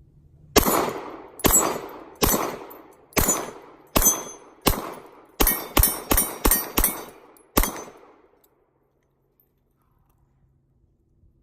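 Glock 19 9mm pistol firing about a dozen shots: six spaced slowly, then a fast string of five, then a single last shot.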